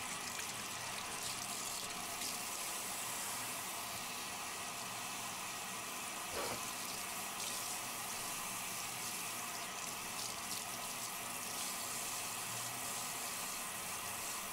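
Water running steadily from a handheld shower sprayer into a bathtub, hissing and splashing while a wet golden retriever is washed, with one brief knock about six seconds in.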